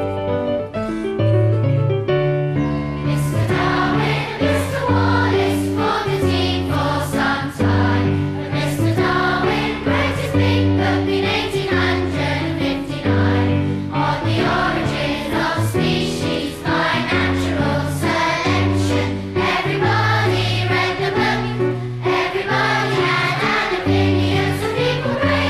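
Children's choir singing a song with instrumental accompaniment and a steady bass line. The first few seconds are accompaniment alone, and the voices come in about three seconds in.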